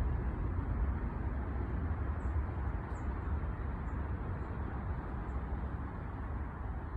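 Forest ambience at dawn: a steady low rumble, with a handful of faint, very high bird chirps scattered through the middle.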